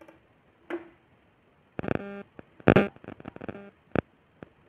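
Whiteboard marker squeaking in short, steady-pitched squeaks as a line is drawn along a ruler, with a sharp knock and a click of the ruler and marker against the board.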